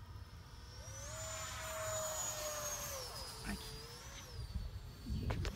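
Electric ducted fan of an E-flite 64mm F-16 Falcon RC jet whining in flight overhead. The whine rises in pitch about a second in, holds, and is loudest around two seconds, then drops back just before three seconds, with a brief rise and fall near four seconds. A short low rumble comes near the end.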